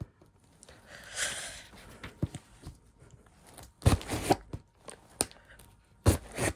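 A cardboard package being handled and worked at with scissors: a stretch of tearing and rustling about a second in, then two short, louder bursts of knocks and scraping around four and six seconds in.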